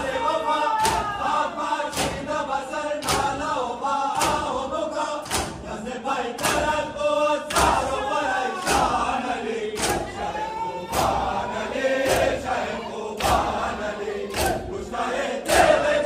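Mourners doing matam: a crowd of men chanting a noha together while striking their chests in unison, the hand slaps landing about once a second over the voices.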